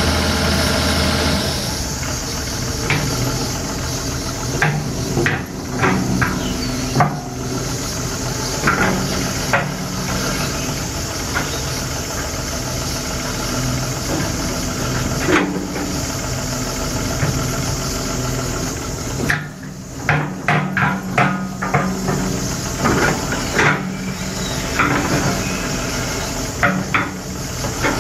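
Terex TXC225LC excavator's diesel engine running while the machine is worked, its note dropping about a second and a half in, with many sharp metallic clanks and knocks over it.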